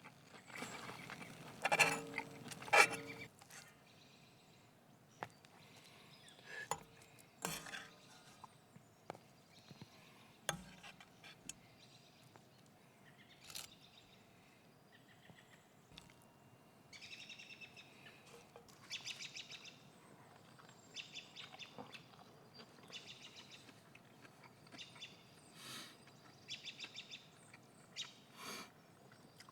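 Small birds chirping in quick, trilled series through the second half, over a few scattered knocks and clinks, the loudest near the start.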